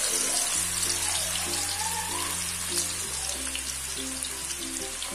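Background music with steady held bass chords over the crackling sizzle of root-crop sticks deep-frying in hot oil in a wok.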